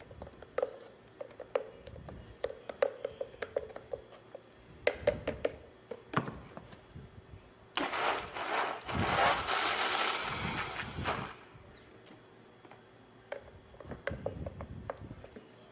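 Blender running in one short run of about three and a half seconds, starting about eight seconds in and cutting off, mixing a dessert pudding after more agave has been added. Before and after it come light clicks and knocks, as of utensils and the blender jar being handled.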